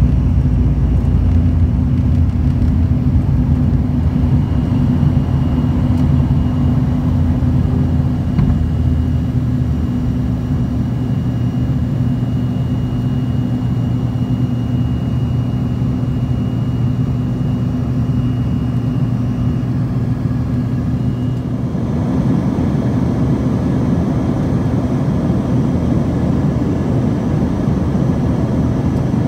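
Jet airliner heard from inside the cabin during takeoff and the first climb: the engines make a steady low drone with a hum and a faint high whine. About three-quarters of the way through, the hum and whine drop away and a broader, slightly louder rushing noise takes over.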